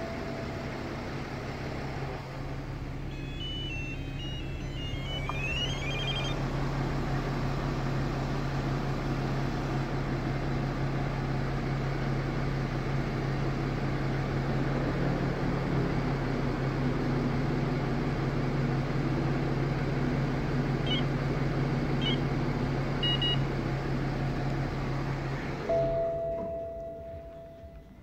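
BMW 7 Series engine running at idle, heard from inside the cabin. A short rising tune of electronic beeps comes a few seconds in, and a few brief beeps come later. The engine shuts off near the end.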